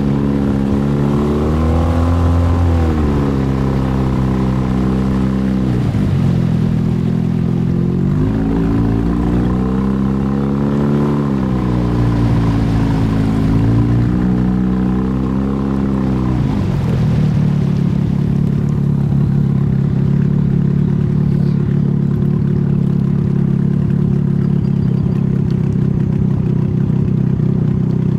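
An engine running, its pitch rising and falling several times as the throttle changes, then holding steady through the second half.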